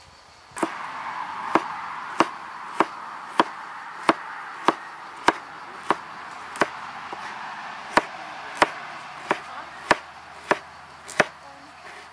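Large kitchen knife chopping carrots into small dice on a wooden cutting board: sharp, even knocks of the blade hitting the board, about three every two seconds, starting about half a second in.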